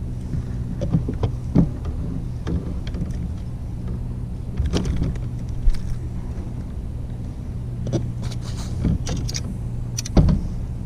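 Kayak electric trolling motor running with a steady low hum, with a few sharp knocks and clicks from handling of the fishing tackle while a bass is brought in.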